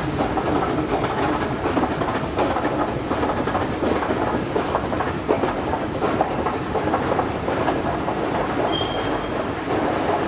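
ValmetSchlieren escalator running: a steady mechanical clatter and rattle of the moving steps and drive, full of small clicks. A short high tone sounds briefly about nine seconds in.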